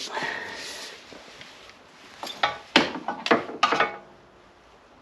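Socket wrench and extension working on a car's front drive-axle bolts: a short scraping rustle at the start, then a cluster of sharp metallic clicks and knocks between about two and four seconds in.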